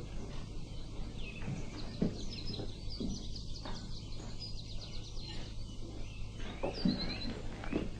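Small birds chirping, in short repeated calls, over a steady low hum, with a few soft knocks.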